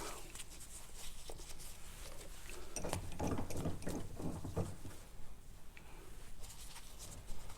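Handling noise of lock cylinders being swapped in a bench vise: scattered small metal clicks and knocks, with a denser run of rustling and knocking about three to four and a half seconds in.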